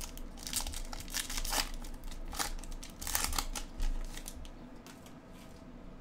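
A trading-card pack wrapper being crinkled and torn open, a run of crackly rustles that thin out after about four seconds.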